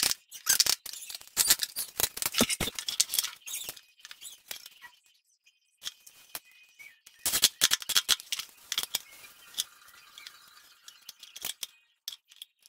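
Scattered clicks, taps and rustles of a metal cabinet hinge and a steel try square being handled and set in place on a plywood panel, with quiet gaps between the knocks.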